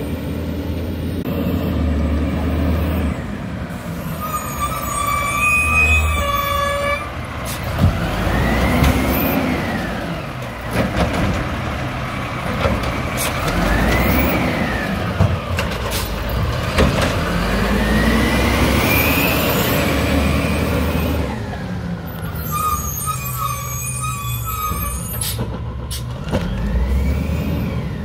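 WhiteGMC Amrep Octo automated side-loader garbage truck: its diesel engine revs up and down three times, and knocks and clanks come from the side arm and the recycling cart as the arm lifts and dumps the cart. A high squeal is heard twice, once before the dumping and once after.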